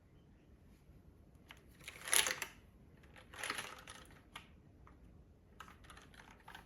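Keystrokes on a JTD Ovinnik TKL mechanical keyboard with MX Purple switches and GMK keycaps: two quick flurries of clacks about two and three and a half seconds in, the first the loudest, then a run of lighter single presses near the end.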